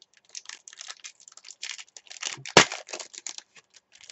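Foil wrapper of a trading card pack being torn open and crinkled in the hands: a run of quick crackles, with one loud sharp crack about two and a half seconds in.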